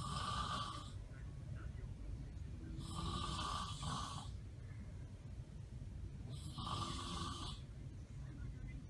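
A person snoring heavily in a slow, regular cycle: three rasping snores, about three seconds apart.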